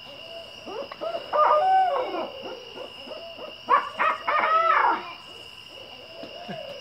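Owls hooting back and forth in a run of arched hoots. A jumble of louder, wild, wavering calls comes about a second and a half in and again around four seconds in. A steady high-pitched buzz runs underneath.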